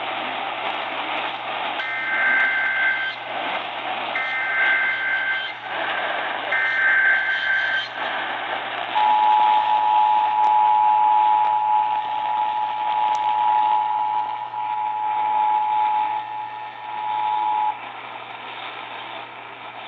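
Emergency Alert System tones received over AM radio with static. Three bursts of warbling SAME header data, each about a second long, are followed by the two-tone attention signal, held steady for about nine seconds, that opens a severe thunderstorm warning.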